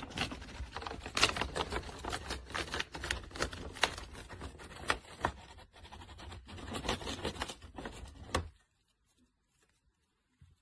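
Peach-faced lovebird tearing at a kraft-paper bag with its beak: quick, irregular crackling and rustling of paper. Lovebirds cut strips like this as nesting material. The sound stops suddenly about eight and a half seconds in.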